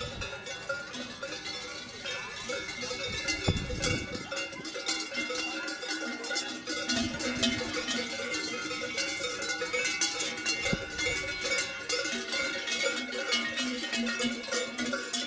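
Many cowbells and cattle bells of different sizes ringing unevenly and continuously, shaken by a crowd of children as they walk in procession for Chalandamarz, the custom of ringing bells to drive out winter. A brief low rumble sounds a little after three seconds in.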